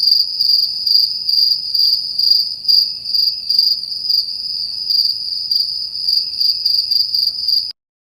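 A cricket chirping: a steady, high-pitched trill in quick, even pulses that cuts off abruptly just before the end.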